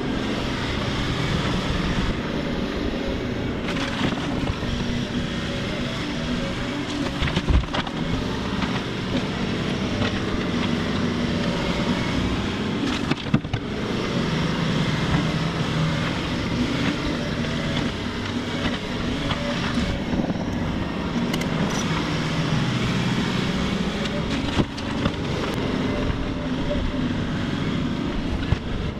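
Diesel engine of heavy equipment running steadily under load while debris is loaded into a dump truck, with a few sharp knocks, near the start, about halfway through and near the end.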